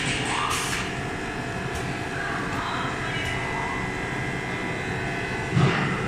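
Lipstick filling machine line running: a steady mechanical hum with several faint steady whining tones from the conveyor and its drives. A single loud clunk comes about five and a half seconds in.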